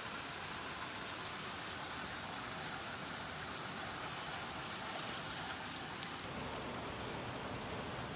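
Steady rush of a rocky mountain stream, an even hiss of water tumbling over stones.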